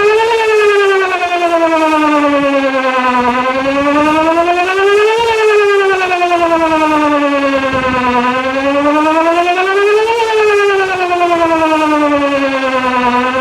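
Whelen WPS 2910 electronic outdoor warning siren sounding a loud wail during a test: one rich tone that rises for about two seconds and falls for about three, peaking three times.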